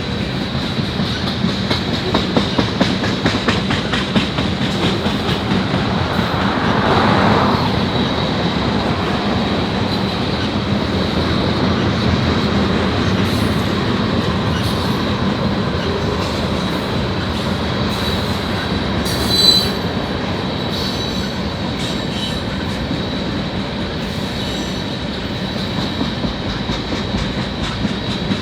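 Freight train rolling past: the steady rumble of the cars, with wheels clicking over rail joints and a thin, steady high wheel squeal. A brief louder screech comes about twenty seconds in.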